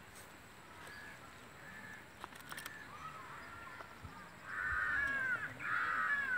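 Crows cawing: faint calls in the first half, then two loud, drawn-out caws close together near the end.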